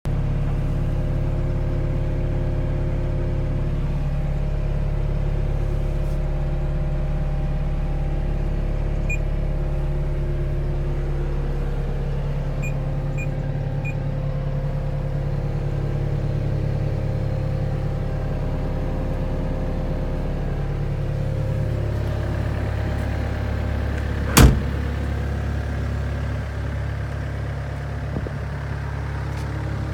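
2013 Hyundai CR80-9 excavator's diesel engine running steadily; about 21 seconds in the engine note shifts, and a single sharp knock stands out a few seconds later.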